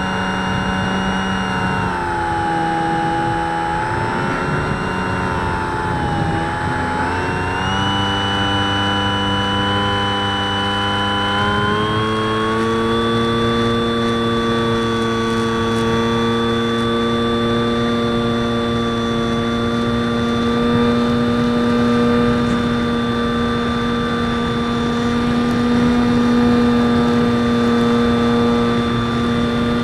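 Electric motor and propeller of a Super Skysurfer RC glider, heard from its onboard camera in flight, with wind rush. The whine sags in pitch about two seconds in as the throttle eases, then climbs in two steps to a steady, higher whine from about twelve seconds on.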